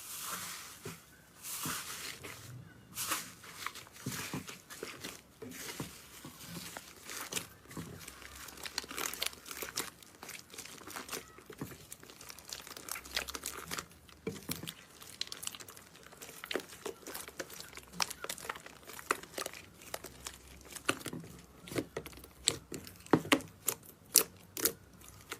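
Slime being squeezed and worked by hand, giving off a dense, irregular crackling of small pops and clicks, with louder bursts of crackles near the end.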